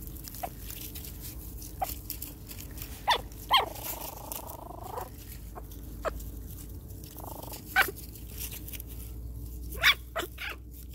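Five-week-old Pomeranian puppies giving scattered short, high-pitched yips and barks, with one longer drawn-out cry about four seconds in.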